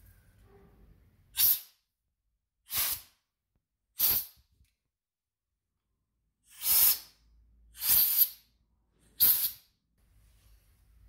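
Compressed-air blow gun on an orange air hose giving six short blasts of hiss at the exposed clutch and gears of a motorcycle engine case. The blasts come in two groups of three, roughly a second and a quarter apart, with a longer gap in the middle.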